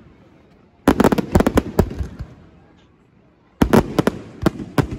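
Fireworks shells exploding in rapid volleys of sharp cracks and bangs. One cluster of a dozen or so reports comes about a second in and dies away, and a second cluster follows about three and a half seconds in.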